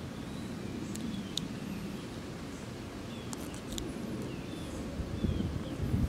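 Steady low wind rumble on the microphone, with small birds chirping faintly now and then and a few light, sharp clicks about a second in and again around three and a half seconds in.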